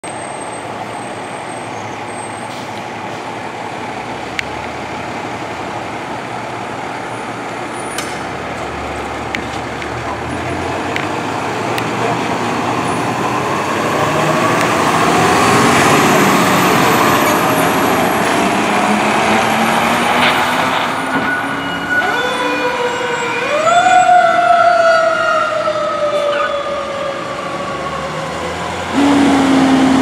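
Fire engine's diesel engine pulling out and accelerating past, growing louder about halfway through. Then its siren winds up in two steps and slowly winds down, and near the end a loud steady horn blast starts abruptly.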